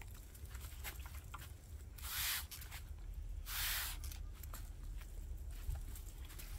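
Hand sprayer with a long wand misting streptomycin solution onto a Shine Muscat grape flower cluster: two short hissing bursts about a second and a half apart, over a low steady rumble.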